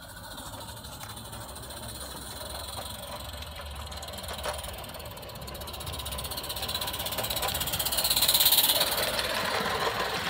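Live-steam garden-railway locomotive hissing steam with a fast, even beat. The hiss swells to its loudest about eight seconds in.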